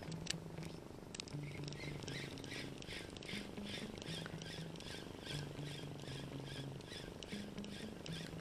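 Bearking Assassin 2000 spinning reel being cranked to retrieve a lure: a faint, rhythmic whir, about three strokes a second with the turns of the handle, over a low hum that changes pitch as the cranking speed changes.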